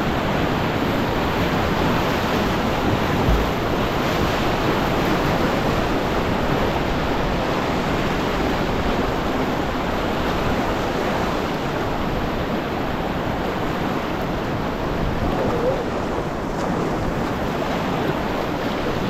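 Steady rush of river whitewater.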